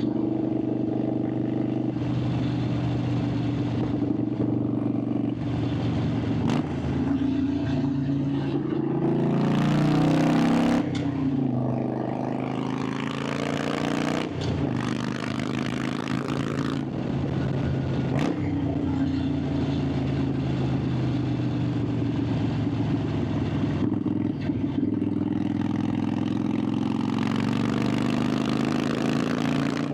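Harley-Davidson Sportster 883's air-cooled V-twin engine and exhaust pulling steadily while riding, its pitch rising and falling about a third of the way through as the revs change. Wind rushes over the microphone in stretches through the middle.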